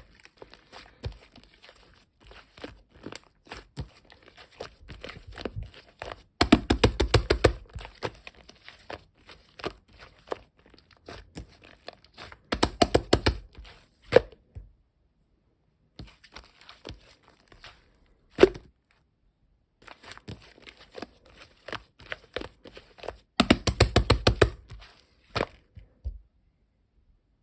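Slime being pressed and squeezed by hand, with rapid crackling and popping of trapped air, rising to several louder bursts of crackles.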